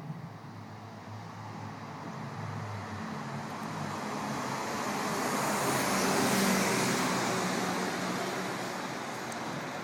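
Volkswagen Golf VR6 driving past: its VR6 engine note and tyre hiss grow louder, peak about six seconds in, then fade away.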